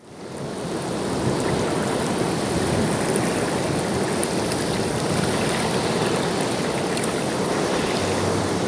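Ocean surf washing through a rocky cove: a steady rush of water that fades in over the first second and holds even. Faint background music comes in near the end.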